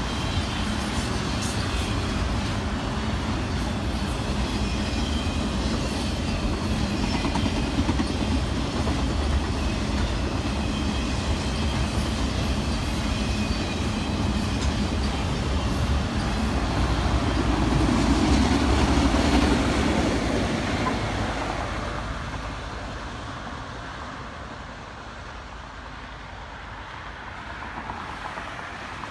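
Long freight train of autorack cars rolling past, a steady rumble of wheels on rail that swells and then fades away about two-thirds of the way through as the end of the train goes by. A car passes on the road near the end.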